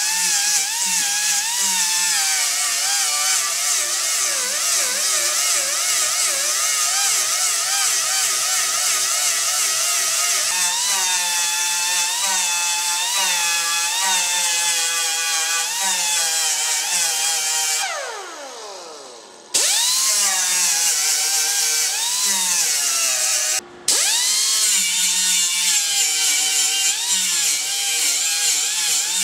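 Angle grinder grinding down a MIG weld on a steel car body panel, a whine over harsh hiss whose pitch wavers as it is pressed into the metal. About two-thirds of the way through it is let go and spins down, then starts up again; a few seconds later it cuts out briefly once more and spins back up.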